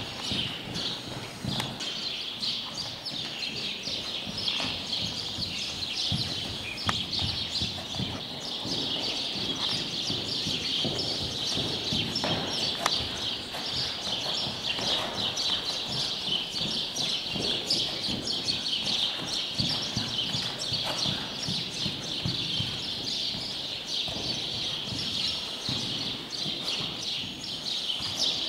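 Hoofbeats of a young warmblood mare trotting on soft sand arena footing, dull thuds in the two-beat trot rhythm. A steady high chirping runs over them, louder than the hooves.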